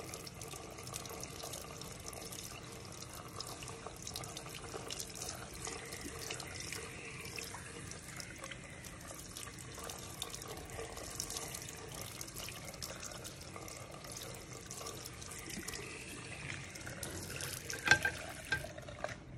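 Handheld shower sprayer running steadily, water splashing on a shaved scalp and into a ceramic basin. A couple of sharp knocks sound near the end, then the spray stops.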